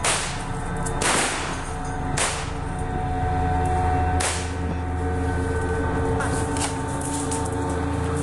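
Gunshots in woodland, each a sharp crack with an echoing tail: four loud shots in the first four seconds, one to two seconds apart, then fainter shots.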